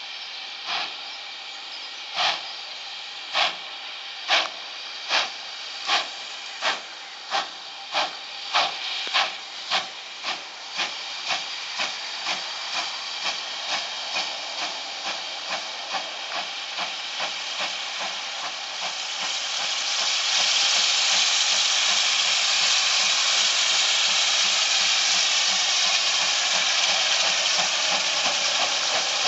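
GWR Manor-class 4-6-0 steam locomotive starting its train: sharp chimney exhaust beats, slow at first, quickening to about three a second and growing fainter. From about two-thirds of the way in, a loud steady hiss of escaping steam takes over.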